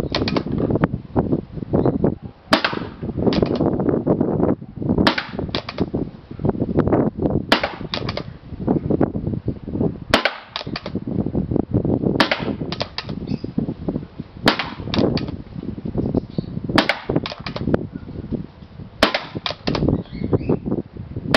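Sanchez Machine SM-1 pump paintball marker, running on a regulated compressed-air tank, firing one shot at a time: about nine sharp pops spaced two to two and a half seconds apart, each followed by a quick cluster of clicks.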